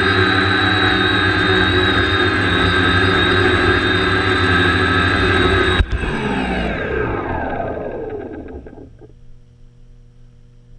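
DJI quadcopter's motors and propellers running with a steady high whine, then a knock as it touches down about six seconds in. The motors then spin down, their pitch falling over about three seconds until they stop.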